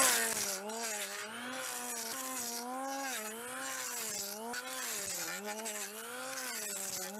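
5-inch electric hand planer shaving a log post, its motor whine dipping and recovering in pitch about once a second as the blades bite into the wood.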